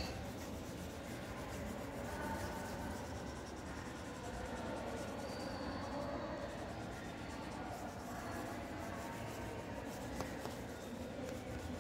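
Crayon rubbing steadily and faintly on paper as a large area is shaded in.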